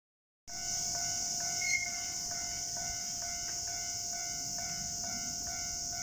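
Japanese railway level-crossing warning bell ringing in an even rhythm of about two dings a second as the crossing closes for an approaching train, over a steady high-pitched hiss. The sound begins about half a second in.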